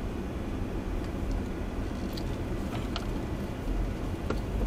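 Steady road and engine noise of a car driving slowly on a paved road, heard from inside the cabin, with a few faint ticks.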